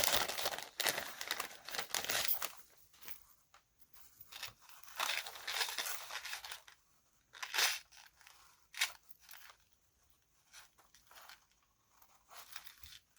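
Wrapping being crinkled and torn by hand as a small packaged item is unwrapped. The rustling comes in bursts with pauses, and two short sharp crackles fall near the middle.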